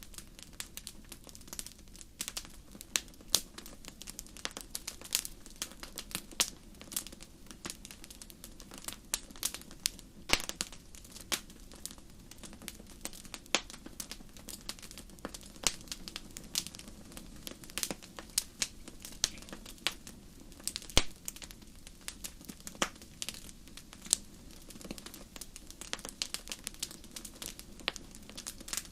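Wood fire burning in a fireplace: irregular sharp crackles and pops, several a second, over a steady low rush of the flames.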